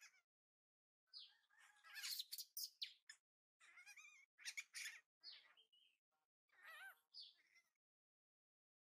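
Baby macaque crying: a run of short, high-pitched squeals and chirps, some arching up and down in pitch, with brief silent gaps between them.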